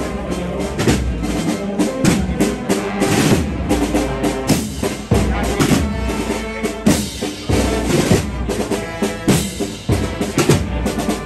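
Youth marching band playing a processional march: drums beating steadily under sustained melody from wind instruments.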